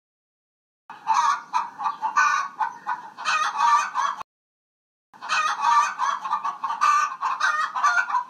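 Chickens clucking in two bursts of about three seconds each, with a short gap between them. The first burst cuts off abruptly.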